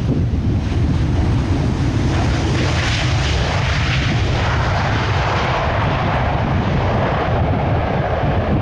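Jet engines of a Royal Air Maroc Boeing 737-800 (CFM56 turbofans) on the landing rollout: a steady rushing roar over a deep rumble, swelling and getting brighter about three seconds in, then easing back.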